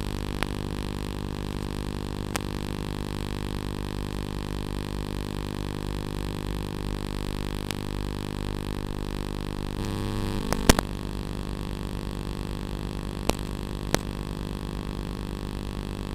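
A steady, unchanging hum made of many evenly spaced pitches, with a few sharp clicks scattered through it; the loudest is a double click about two-thirds of the way in, just after the hum briefly swells.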